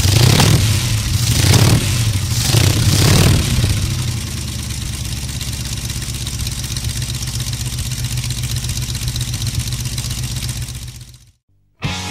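Motorcycle engine revved three times, then idling steadily with an even beat before it cuts out shortly before the end.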